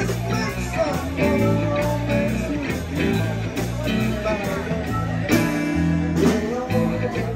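Live blues band playing: electric guitar and electric bass under a harmonica and a singing voice.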